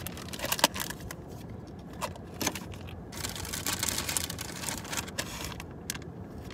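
Plastic packaging crinkling and rustling as it is handled, with irregular sharp clicks and a few light knocks; the loudest knock comes under a second in.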